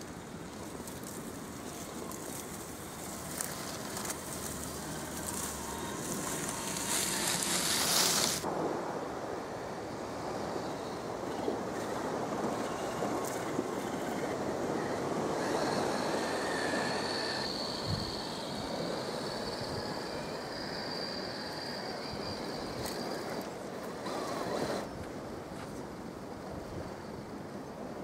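Steady outdoor rush of wind and waves with a Traxxas TRX-4 RC rock crawler's small electric motor and drivetrain whining faintly as it climbs, the whine clearest in the middle. A loud rushing burst comes about eight seconds in.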